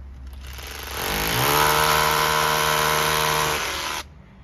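Handheld electric power tool: the motor spins up about a second in, runs steadily at high speed for a couple of seconds with a whining tone and a rough noise, then winds down and stops.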